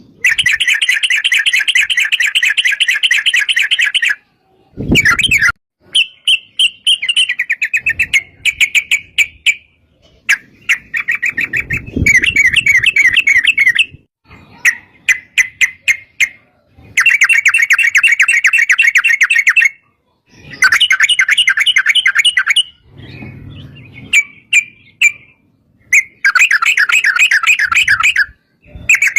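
Yellow-vented bulbul (trucuk) singing in long, fast, rattling trills: bursts of a few seconds broken by short pauses and scattered single chirps. A brief low thump comes about five seconds in and another around twelve seconds.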